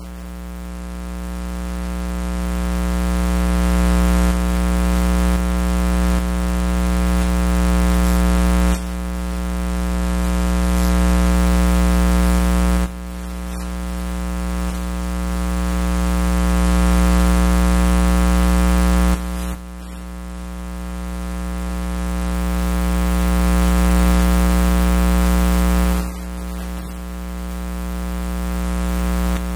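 Loud electrical buzz: a steady mains hum with many overtones over a hiss. Its level creeps up for several seconds and then drops suddenly, again and again.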